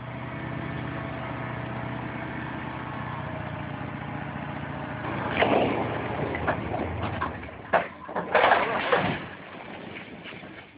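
Dump truck engine running steadily while the bed tips. About five seconds in, the load of building blocks slides off the bed and crashes to the ground in a run of loud clattering impacts lasting several seconds, then dies down.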